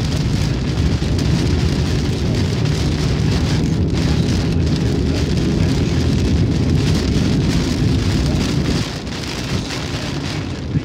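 Heavy rain hitting a car's windshield and body while driving on a flooded highway, heard inside the car, over a steady low rumble of tyres on the wet road. The low rumble drops off about nine seconds in.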